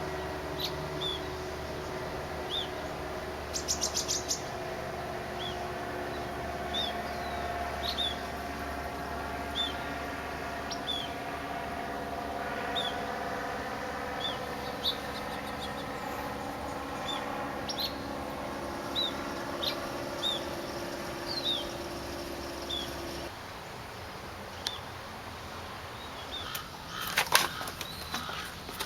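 A small bird chirping repeatedly, short high notes about once a second, over a steady mechanical hum that cuts off suddenly about 23 seconds in. A few sharp clicks and knocks follow near the end.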